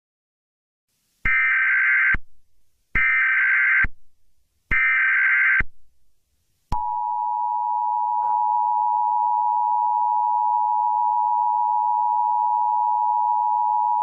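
Emergency Alert System header: three short bursts of screechy digital data tones about a second apart, then the steady two-tone EAS attention signal starting about 7 seconds in and held. Together they announce an emergency alert about to be read.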